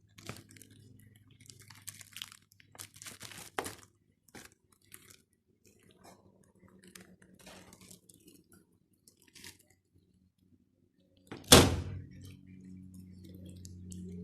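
Scattered clicks and rustling handling noises, then one loud thunk about three-quarters of the way through, followed by a faint steady low hum.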